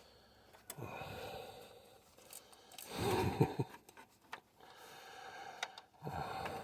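A man sighing and breathing hard with effort while working, with a few sharp clicks of handling in between.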